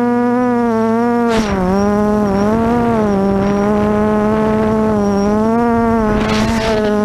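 Brushless motors and 8x4.5 propellers of a QAV400 quadcopter running in flight, heard from its onboard camera: a steady, loud buzzing whine whose pitch wavers slightly with throttle. Twice, about a second and a half in and again near the end, a rush of noise swells over it as the pitch briefly dips.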